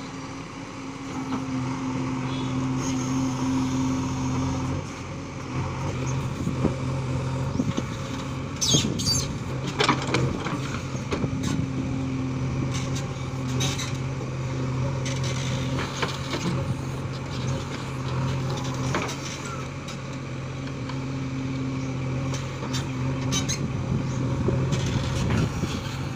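JCB backhoe loader's diesel engine running under load while the backhoe arm digs and dumps soil, its steady hum growing louder about a second in. Scattered clattering knocks from the bucket and falling soil and stones.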